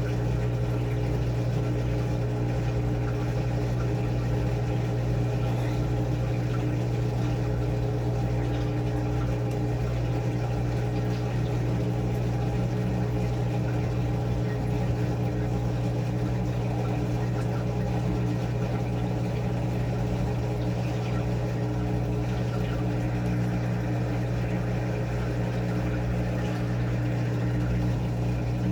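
Washing machine running with a steady motor hum that holds one even tone throughout.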